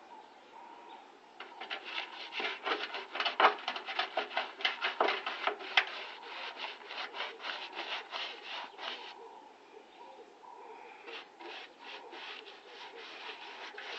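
Quick, repeated rubbing strokes against a surface, about four a second, with a pause and then lighter strokes starting again near the end.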